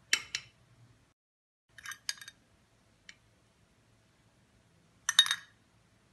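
Small metal spoon clinking against a plate while strawberry jam is spooned onto it: two light clinks at the start, a quick run of three about two seconds in, a faint tick at three seconds and a louder cluster about five seconds in.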